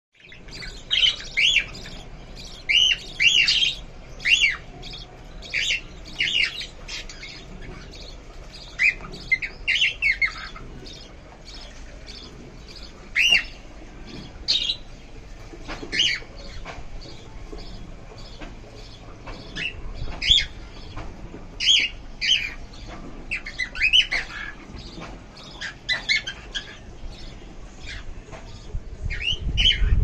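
Lovebirds giving short, shrill chirps and squawks, repeated in quick clusters with gaps of a few seconds between them.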